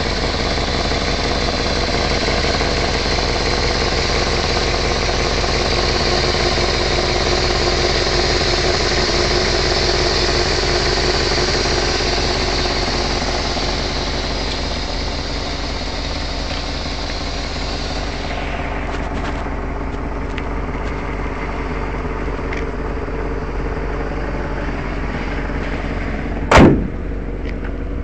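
1979 Mercedes-Benz 450SL's 4.5-litre V8 idling steadily, with a hiss from the engine bay that drops away about two-thirds of the way through. Near the end, one loud slam with a short ring as the hood is shut.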